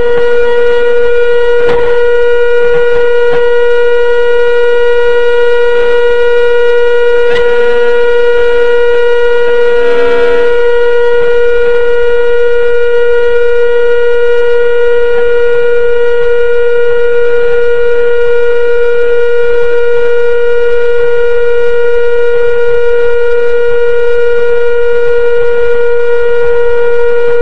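Car horn sounding in one long, unbroken, steady tone, with a few faint knocks beneath it.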